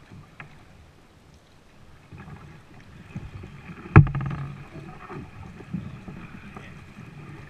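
Plastic kayak being paddled slowly through weed-covered canal water: paddle strokes, swishing and light rustling against the hull. One sharp, loud knock about halfway through.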